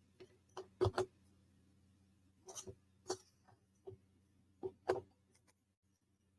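Light, irregular clicks and taps of thin wooden puzzle-kit pieces being handled and pressed together, about ten in all over the first five seconds.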